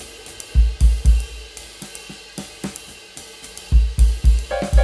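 Background music: a drum beat with hi-hat and cymbal ticks, and two short runs of heavy kick-drum hits, about half a second in and again near the end.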